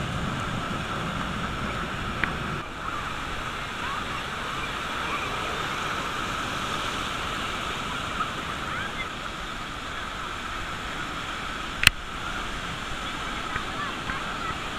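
Ocean surf breaking and washing up the beach as a steady hiss, with faint voices of the crowd of beachgoers behind it. A low rumble fills the first two and a half seconds, and a single sharp click sounds about twelve seconds in.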